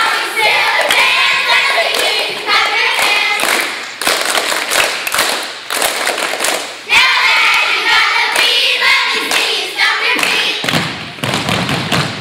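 A group of young girls chanting a cheer in unison, broken up by sharp hand claps and thumps.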